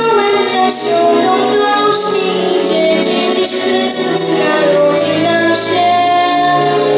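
A girl singing a pop song into a microphone over instrumental accompaniment with a bass line, holding a long note near the end.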